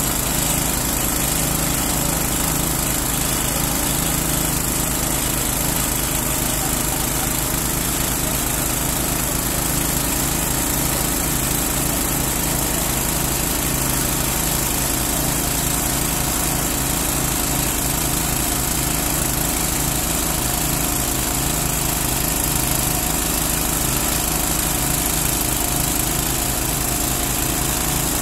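Small petrol engine of a portable well-drilling rig running steadily at constant speed, turning the drill rod during drilling.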